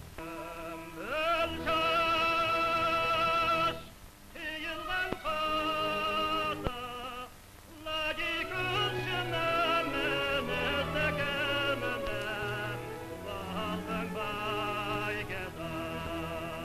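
Lyric-coloratura soprano singing long, high notes with a wide vibrato over a quieter low accompaniment, in an old archival recording of the 1940s–50s. Short breaks between phrases come about four and seven and a half seconds in.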